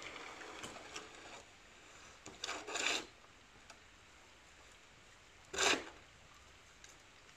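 A shovel scraping across a concrete yard as it pushes straw and muck, in separate strokes. There is a soft scrape at the start, a louder double scrape about two and a half seconds in, and the loudest, short scrape about three-quarters of the way through.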